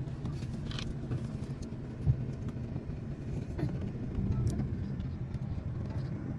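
Steady low rumble of a car in slow traffic, heard from inside the cabin, with a single short thump about two seconds in.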